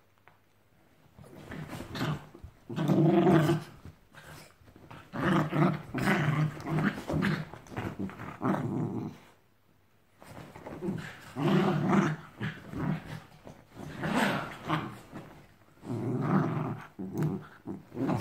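Two dogs play-fighting, growling in repeated bouts of a second or two with short pauses between them.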